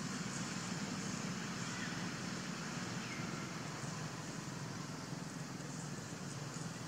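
Steady outdoor background noise: an even low rumble with a hiss over it, without distinct calls or knocks.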